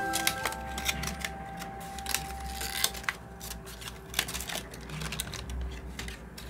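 Cardstock paper pieces being handled and fitted together: an irregular run of sharp clicks, taps and rustles over a low steady hum.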